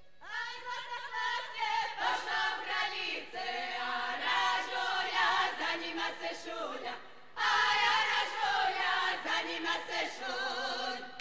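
Group of women singing a Slavonian folk song unaccompanied, in two phrases with a short breath pause about seven seconds in.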